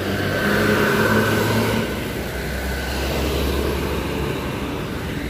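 Intercity bus passing close by at speed, its engine and tyres loud, with a steady whine over the first two seconds. It gives way to a deeper rumble as a truck drives past.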